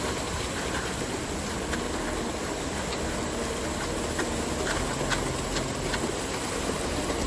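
Concrete mixer truck's diesel engine running steadily, with a few faint clicks scattered through.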